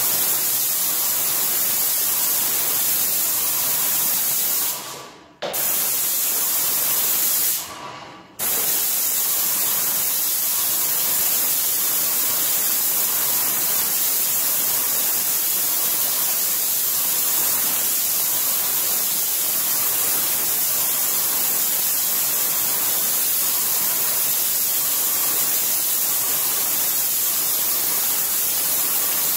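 Yokiji 120 airless paint sprayer's gun spraying paint onto a wall: a loud, steady hiss that cuts out twice briefly, about five and eight seconds in.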